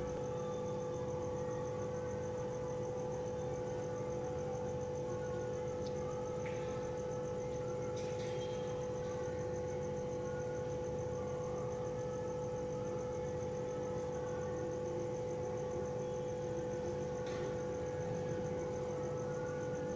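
A steady, unchanging hum with a fixed pitch, with a few faint light clicks.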